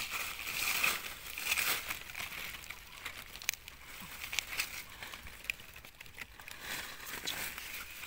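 Dry fallen leaves rustling and crackling as hands dig through the leaf litter to pull up a wild mushroom, with scattered small snaps. The rustling is loudest in the first couple of seconds, then softer.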